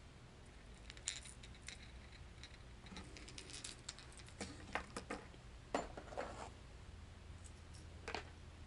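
Faint scattered clicks and light clinks of hard plastic fishing lures and their hooks being handled and lifted out of a cardboard box.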